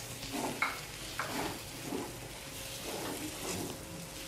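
Metal spatula stirring and scraping a dry onion, coconut and tomato masala in a metal kadhai, in repeated uneven strokes, over a light sizzle of the masala frying in oil.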